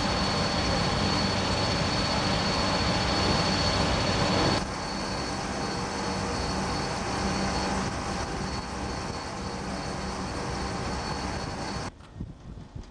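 Steady machinery noise aboard a warship: a loud, even rushing hum with a faint high whine. It drops a little in level about four and a half seconds in and cuts off suddenly near the end.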